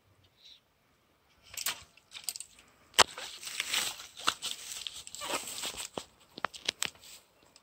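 Rustling and crunching of tall grass and dry stalks as a hooked fish is swung out of the water onto the bank and handled, with a sharp knock about three seconds in and a few lighter clicks near the end.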